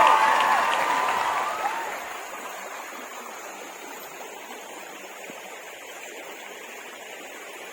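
Steady rushing of a flowing creek, fading down over the first two seconds or so. Shrill chirping calls sound over it at first.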